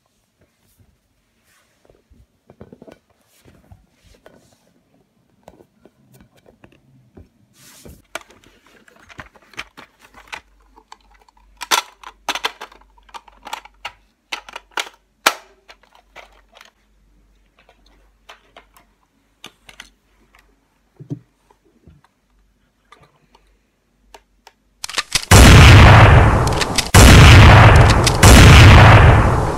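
Clicks and knocks of a plastic Nerf Stryfe blaster being handled and its magazine snapped in, then near the end three loud bursts of machine-gun fire, each about a second and a half long.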